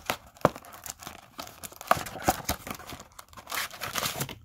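Cardboard trading-card box being torn open by hand, with the foil card packs inside crinkling as they are handled. An irregular run of sharp rips and crackles, loudest about half a second and two seconds in, with a dense patch of crinkling near the end.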